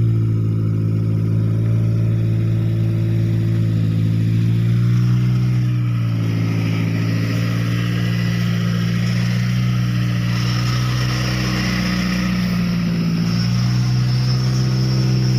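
Engine running loudly at a steady speed, its pitch dipping slightly and recovering about a third of the way in and again near the end.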